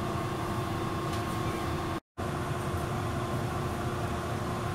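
Steady interior hum of a Hiroshima Electric Railway 700-series tram car, with a constant low tone running through it. The sound drops out completely for a moment about two seconds in.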